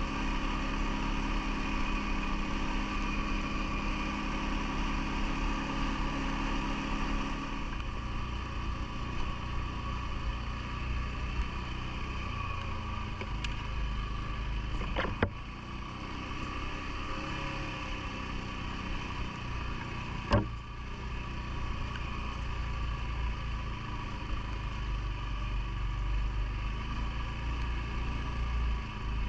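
CFMoto ATV engine running steadily, its note shifting lower about a quarter of the way in. Two sharp clicks stand out, about halfway and about two-thirds through.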